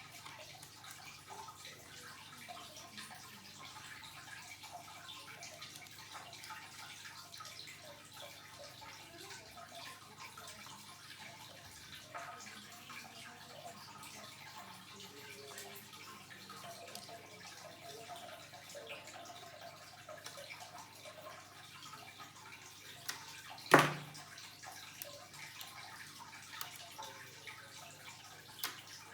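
Faint steady hiss with scattered light clicks, and one sharp knock late on.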